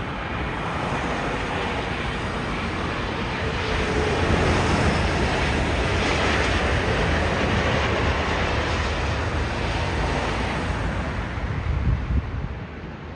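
Jet airliner passing by: broad engine noise that swells to its loudest about five seconds in and then slowly fades away.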